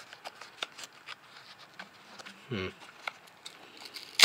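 Fingers handling and prying at a small cardboard knife box: scattered light taps and scrapes of cardboard, a short hum from the person about halfway through, and one sharp click near the end.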